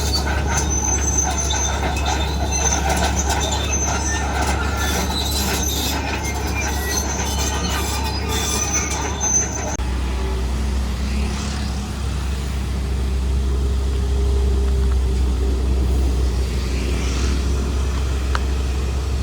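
Heavy diesel machinery running with a steady low drone, with high metallic squeals over it for the first ten seconds. About ten seconds in the sound changes abruptly and the squeals stop.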